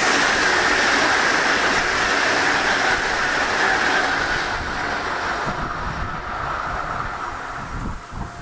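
ČD class 681 Pendolino electric train passing close by, a loud steady rush of wheels on rail and air. It fades from about four seconds in as the train runs away down the line.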